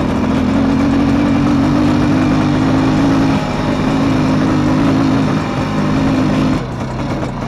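IZh Planeta motorcycle's single-cylinder two-stroke engine running at a steady throttle while riding, with wind rushing past. The engine note eases off near the end.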